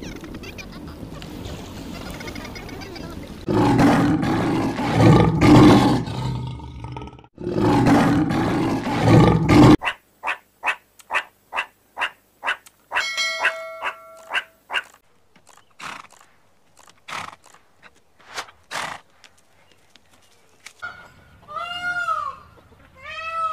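A string of animal calls. First two long, loud, rough calls, then a run of short sharp clicks at about two a second. Near the end come two arched, wailing calls that rise and fall in pitch: a peacock calling.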